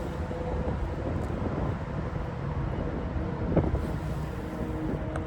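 Steady low outdoor rumble with wind on the microphone and a faint steady droning hum, which fits distant traffic or aircraft. A short sharp knock comes about three and a half seconds in.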